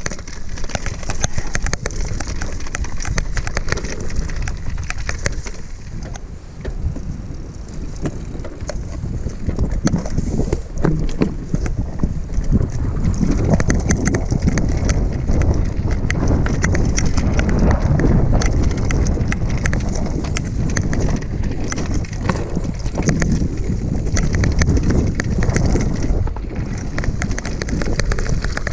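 Mountain bike rattling down a rocky singletrack: tyres rumbling over stones with a constant clatter of knocks from the bike, and wind buffeting the microphone. It gets rougher and louder about halfway through.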